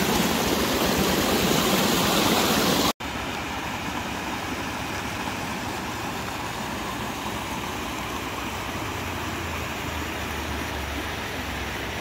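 Muddy runoff water rushing steadily through a rice-paddy channel, close by. About three seconds in the sound cuts for an instant and carries on quieter: water spilling over a paddy bund into a flooded rice field.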